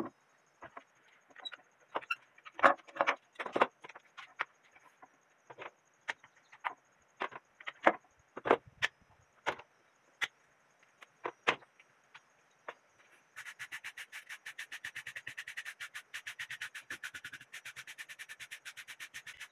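Plastic quick-grip bar clamps clicking and knocking as they are released and set down on a wooden bench. About two-thirds in, a hand file starts scraping quickly and evenly back and forth over the bark of a log, several strokes a second.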